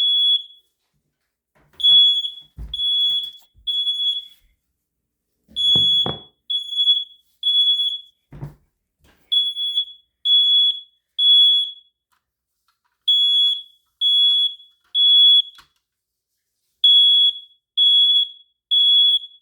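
Ceiling smoke alarm sounding in response to smoke: high-pitched beeps in repeated groups of three, about one beep a second, with a pause of about a second and a half between groups. A few low thumps in the first half.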